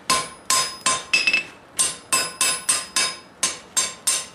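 A hand hammer strikes a red-hot steel bar on an anvil in a steady rhythm, about three blows a second, and each blow rings briefly. The smith is driving the point back so the steel spreads wider.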